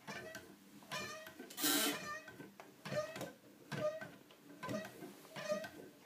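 Squeaking mechanism of a hand-cranked wooden automaton's twirling feather bird: a short pitched squeak about every 0.8 seconds as the crank turns, with one louder, rougher rasp about two seconds in.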